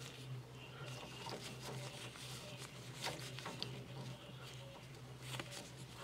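Faint rustling and light clicks of a gloved hand handling wiring and a plastic wire connector inside a furnace cabinet, over a steady low hum.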